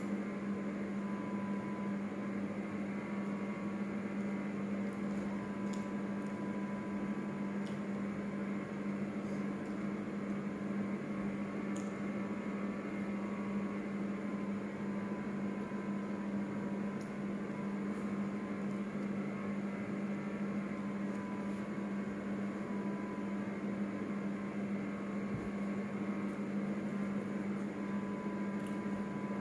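A steady mains-type hum with a constant low tone, unchanged throughout, and a few faint soft clicks over it.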